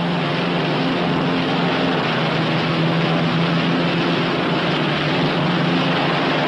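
Northrop P-61 Black Widow's twin Pratt & Whitney R-2800 radial engines running steadily on the ground during the final pre-takeoff check, an even noise with a steady low hum.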